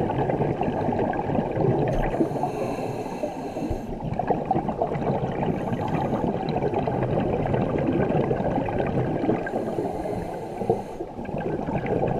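Scuba diver breathing through a regulator underwater: the steady gurgle and rumble of bubbles, with three separate hissing breaths through the regulator.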